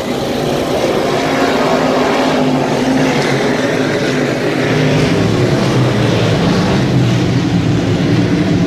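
Several dirt-track sportsman modified race cars' V8 engines running hard on a clay oval, a loud steady engine drone as the field laps.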